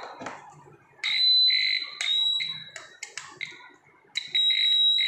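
Pen-type non-contact voltage tester beeping with a high, steady electronic tone in runs of about a second as its tip is pressed against a stone. The beeping pauses shortly before the fourth second and starts again just after it. The owner puts the beeping down to stray electric fields from the many electrical devices nearby.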